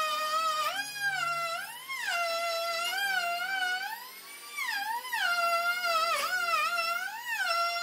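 Background music: a lead melody that slides smoothly up and down between notes, over a soft low accompaniment.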